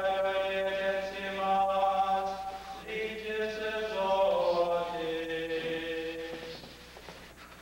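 Voices singing a slow liturgical chant in long held notes: two phrases, the second fading out near the end.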